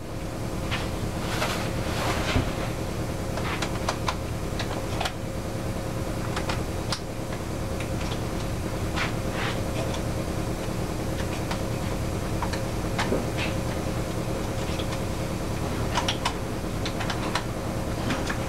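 Scattered small clicks and taps of a hand tool working screws out of the intake side of an outboard V-6 powerhead, over a steady background hum.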